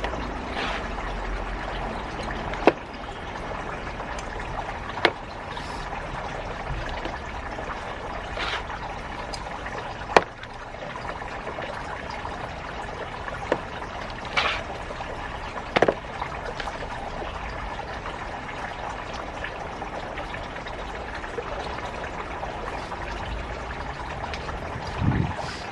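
Water trickling and pouring steadily, with a few sharp clicks and short knocks scattered through it.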